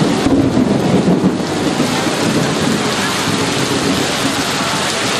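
Heavy rain, loud and steady, with a low rumble of thunder that is strongest in the first second or so and then fades away.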